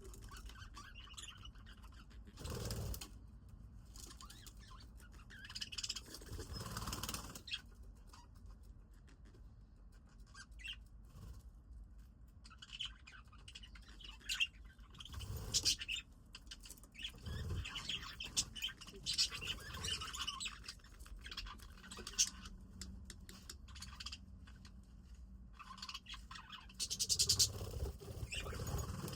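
Budgies chirping on and off in short high chirps, with occasional brief rustles and wing flaps.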